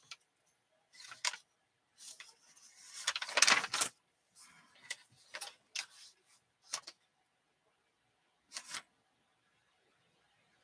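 Scattered small clicks and rustles of handling noise, with a louder, longer rustle about three and a half seconds in and a last click near the end.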